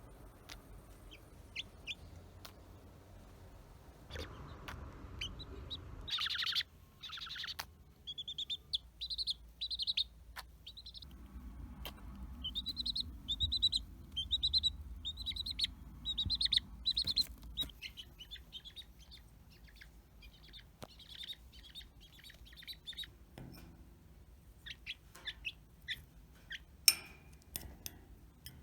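A baby chick peeping in runs of short, high calls, each dropping in pitch. Short sharp clicks or taps are scattered throughout, coming more often and louder near the end.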